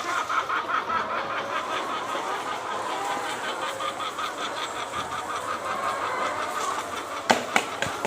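A flock of chickens, many birds clucking and calling at once in a steady din. Two sharp knocks near the end.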